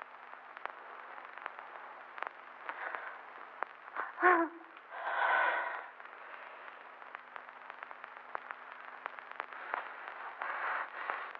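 A newborn baby gives a short, loud cry about four seconds in, then a longer whimpering cry just after, and more fussing near the end. Behind it runs the steady hiss, clicks and low hum of an old film soundtrack.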